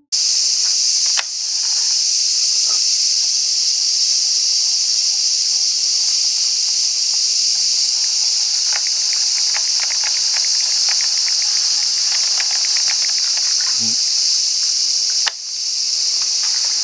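Loud, steady chorus of summer insects, a high hiss that does not let up. A run of faint rapid ticks, several a second, comes in the middle, and a brief low sound is heard just before the fourteenth second.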